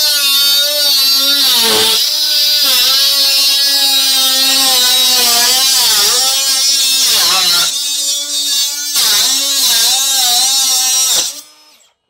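Angle grinder cutting through sheet metal: a high motor whine over a harsh grinding hiss, the pitch dipping several times as the cut goes on. It stops near the end.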